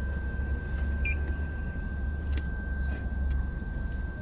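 Lexus GS300's V6 engine being cranked over by the starter, turning steadily without firing: a crank-but-no-start condition. A short electronic beep sounds about a second in.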